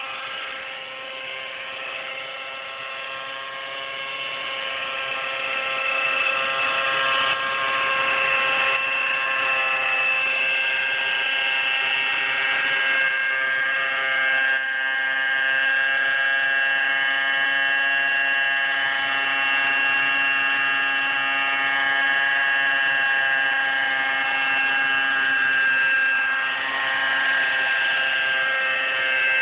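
A nitro-powered Align T-Rex 600 RC helicopter's glow engine and rotors running in flight, a steady pitched drone that gets louder over the first several seconds as the helicopter comes in low.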